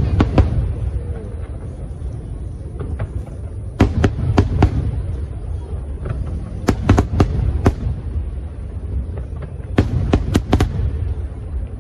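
Fireworks display: aerial shells bursting in quick clusters of sharp bangs, a cluster every three seconds or so, over a continuous low rumble.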